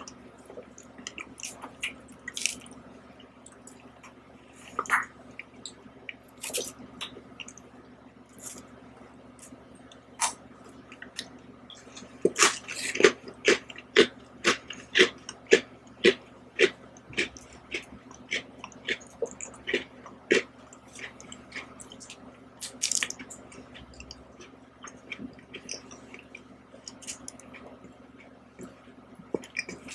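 Close-miked eating of ice cream and Oreo cookies from a spoon: wet mouth clicks and smacks, with a regular run of chewing about two chews a second around the middle.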